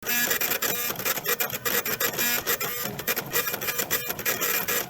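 3D printer running: its stepper motors buzz and whine in quickly changing tones as the print head moves back and forth.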